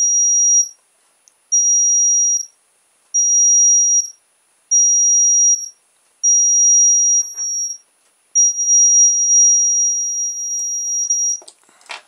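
Light-activated reversing beeper's piezo sounder giving a very high-pitched steady beep, switching on and off six times in stretches of about a second, the last one about three seconds long. The circuit is still working with its red LED removed.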